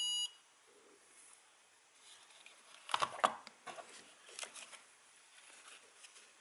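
A steady high electronic beep from the AOMWAY Commander FPV goggles, powered up from a 2S LiPo, cuts off just after the start. About three seconds in come a cluster of sharp clicks and rustles as the plastic goggles and their foam faceplate and strap are handled.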